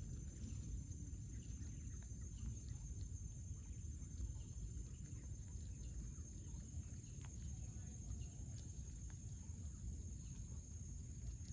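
Faint outdoor background: a steady low rumble with a thin, steady high-pitched whine and scattered faint ticks.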